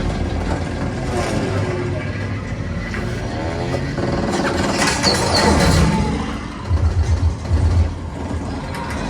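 War-film air-battle soundtrack played through a home theater with a REL S/812 subwoofer. Aircraft engines drone with heavy low bass, and a plane sweeps past with a falling pitch about five seconds in. Near seven seconds comes a rapid string of deep thuds.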